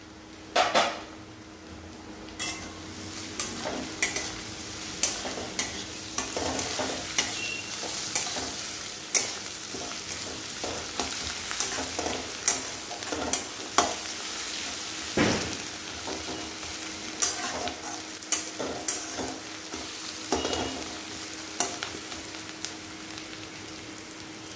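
Chopped onions, green chillies and crushed ginger-garlic sizzling in oil in an aluminium kadai, with a metal spatula scraping and knocking against the pan as they are stirred.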